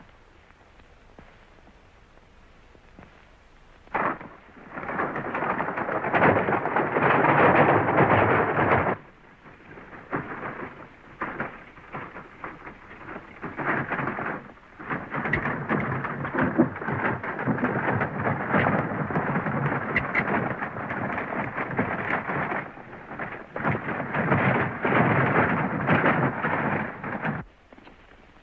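Horses galloping and pulling a wagon: a dense clatter of hoofbeats and rattling wheels. It starts with a sharp crack about four seconds in and stops shortly before the end.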